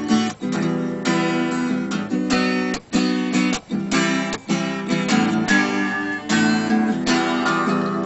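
Acoustic guitar strummed in chords, with short breaks where the strings are stopped between chord groups.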